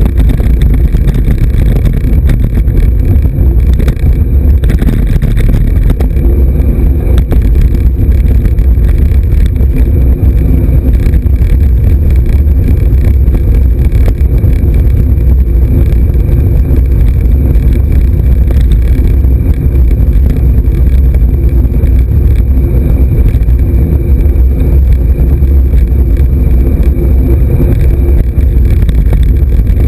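Wind buffeting and road rumble picked up by a bike-mounted action camera's microphone while riding a road bike on tarmac: a loud, steady low rumble.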